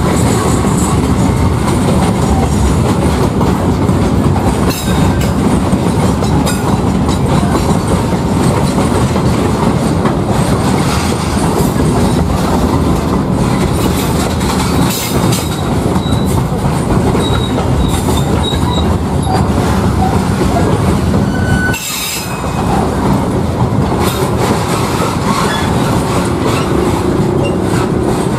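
A container freight train passing close by, its loaded flat wagons rumbling and clattering steadily over the rails. Brief faint high wheel squeals come in now and then.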